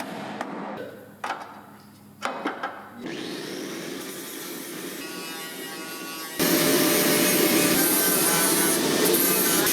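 A few sharp clicks, then a power tool running against car-body sheet metal with a steady rasping noise that gets much louder about six and a half seconds in.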